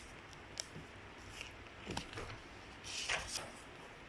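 Quiet room with a few faint ticks and knocks and a short rustle near the end: small handling noises.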